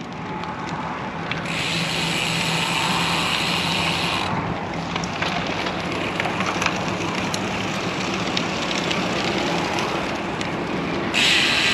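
Steady wind and road noise while riding a road bike along a busy highway, with a passing vehicle's engine hum and tyre hiss in the first few seconds.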